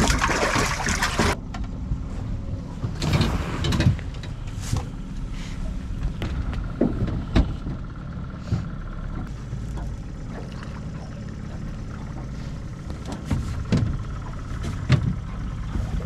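A walleye splashing in the water of a boat's live well: a burst of splashing that cuts off suddenly about a second in, and a second burst a couple of seconds later. Under it a steady low rumble and scattered knocks on the boat.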